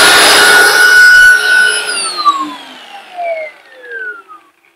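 A 12,000 rpm angle grinder fitted with a snail-shell (centrifugal) blower adapter runs at full speed, very strong, with a high whine over a rush of air. About two seconds in it is switched off, and the whine falls steadily in pitch and fades as the grinder and impeller spin down.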